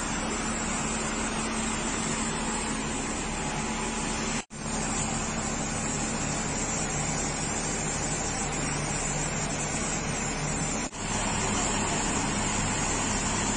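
Steady, loud rushing noise with a low hum beneath it, cutting out for an instant twice.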